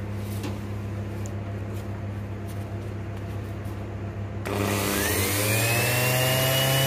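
A new Bosch round-pad sander is switched on about four and a half seconds in. Its motor whines up in pitch over about a second, then runs steadily with a smooth, even tone.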